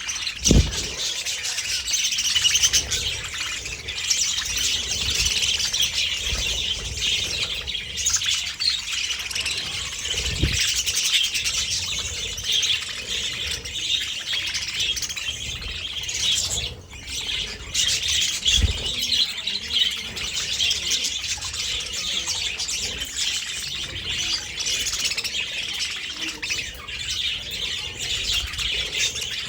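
Budgerigars chattering and warbling in a dense, unbroken chorus of high chirps, with a brief lull about two-thirds of the way through. A few short, low thumps are heard, near the start, about a third of the way in and again about two-thirds in.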